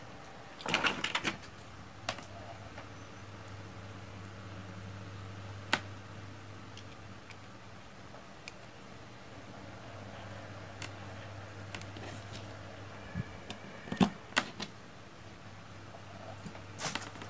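Scattered small clicks and taps from hands handling a potentiometer module and a plastic solderless breadboard: a quick cluster about a second in, a few single clicks, the sharpest pair a few seconds before the end and another short cluster near the end, over a steady low hum.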